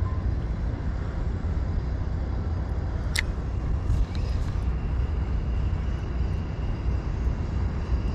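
Steady low outdoor rumble, with a single sharp click about three seconds in and a faint high steady tone from about halfway.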